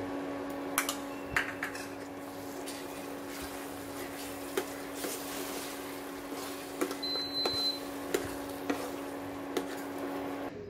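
A steel spoon scrapes and taps against a nonstick pan as thick milk halwa is stirred, over the steady hum of an induction cooktop. The hum cuts off near the end as the cooktop is switched off. A short high beep sounds about seven seconds in.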